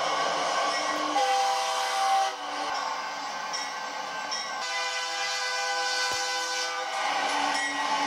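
Diesel locomotive air horns sounding held multi-tone chords, one blast after another: a long blast over the first two seconds, a quieter gap, then another long blast from about the middle onward.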